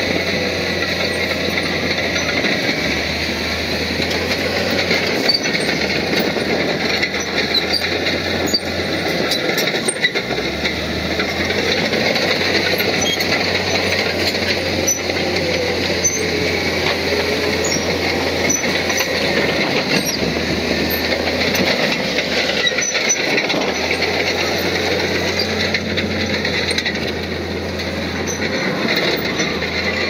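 Komatsu crawler bulldozer working: its diesel engine runs steadily under load over the clanking of its steel tracks.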